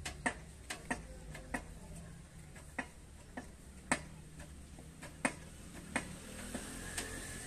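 A homemade scissor lift table being raised by foot-pumping its hydraulic bottle jack: a string of sharp metallic clicks from the pedal and lift mechanism, irregularly spaced at roughly one or two a second, some much louder than others.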